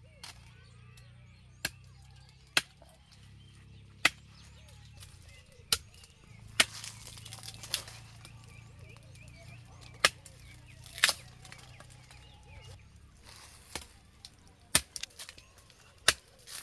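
A series of sharp, single chopping or knocking strikes at irregular intervals, about a dozen in all, the loudest a little over a second apart near 10 to 11 seconds in.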